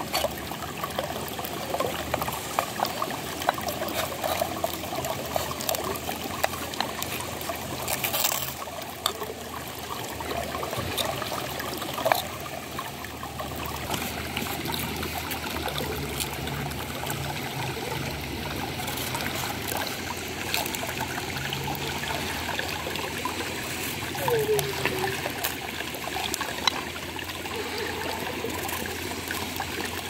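Shallow stream trickling and rushing steadily over stones, with occasional sharp clicks and cuts as a knife slices through a watermelon.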